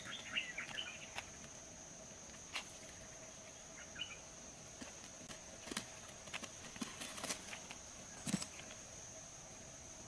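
Faint steady insect drone with quail giving a few short chirps near the start and about four seconds in, and soft scratching clicks as they peck in the sand. A sharper knock comes about eight seconds in.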